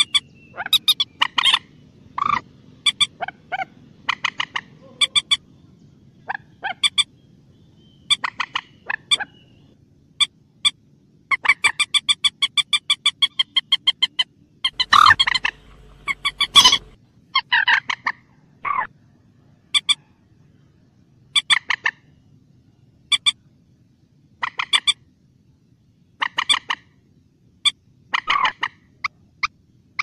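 Common moorhen calling: short, sharp calls repeated at irregular intervals, with a fast stuttering run of calls about halfway through and the loudest calls just after it.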